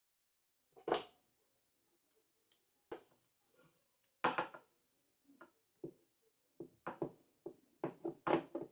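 Sharp clicks and knocks of hard parts being handled while a rotary hammer drill is taken apart and put back together. The knocks come faster near the end.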